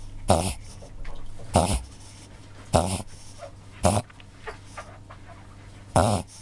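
Cavalier King Charles Spaniel making a run of forceful, noisy breaths, four about a second apart, then one more after a pause of about two seconds. The owner takes the bout for reverse sneezing, which is hard to stop once it starts.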